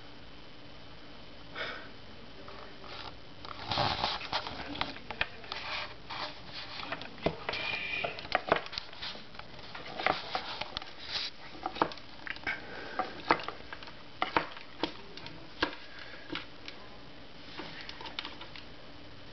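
Irregular light clicks, taps and scrapes as a hermit crab's legs and shell move across a wooden tabletop. The clicks come thick from a few seconds in and thin out near the end.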